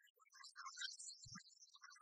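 Near silence: faint scattered crackle, with one brief low thump a little past halfway.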